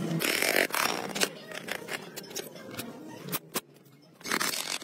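Scrapes and light metallic clicks of hands handling corroded motorcycle engine parts during teardown, with a short scrape near the start and another near the end.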